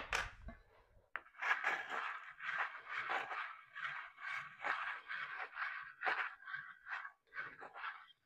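Metal bench scraper scraping along cream cheese frosting on the side of a cake as the turntable is turned, in a steady run of short scraping strokes, about two or three a second. A low thump right at the start.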